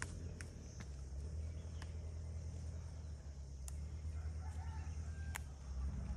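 A rooster crowing in the distance about four seconds in, over a steady low rumble, with a few faint clicks.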